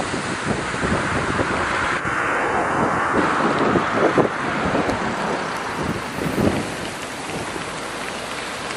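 Storm-force wind gusting across the microphone, an even rush with irregular low buffets.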